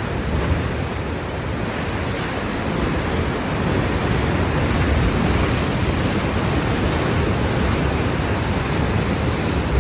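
Sea waves surging and washing, with wind rumbling on the microphone.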